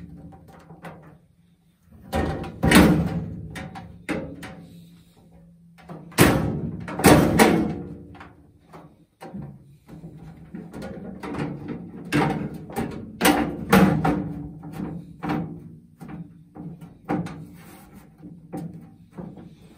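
Metal clanks and rattles as the perforated steel grate and mesh panels of a sheet-metal parts-washer cabinet are lifted and set down. There are many separate knocks, the loudest about three seconds in and again around six to seven seconds in.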